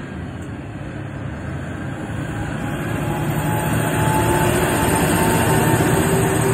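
Multi-axle mobile crane driving past close by: engine and tyre noise growing steadily louder as it approaches, loudest in the last couple of seconds as it passes, with a thin steady whine over the engine note.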